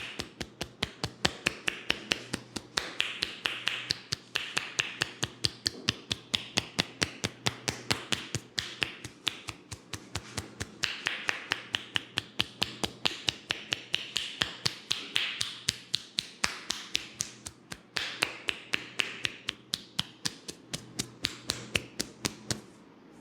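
Fast, even tapping of hands on a person's head, as in a percussive Indian head massage, about four sharp slaps a second with a soft rustle between them. The tapping stops shortly before the end.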